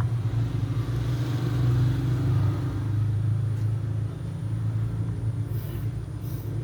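A motor engine running steadily with a low rumble, easing off slightly about four seconds in.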